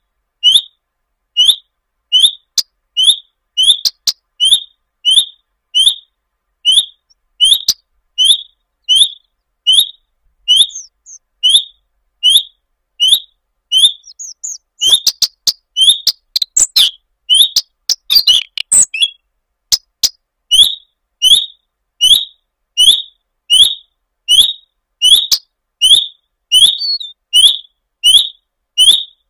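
Common redstart calling: a short high whistled note repeated at an even pace, about one and a half times a second, with a busier jumble of mixed notes about halfway through.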